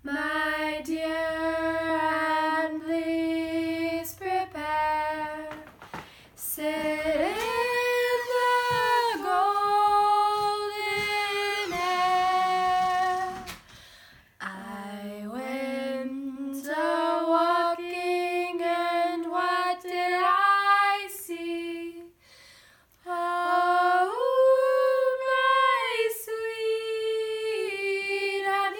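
Two girls singing a cappella: long held notes in phrases, with short pauses between phrases and the melody stepping up in pitch a couple of times.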